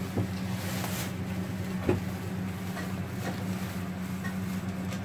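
A steady low hum, like a running motor or appliance, with a few light clicks and one sharper knock about two seconds in.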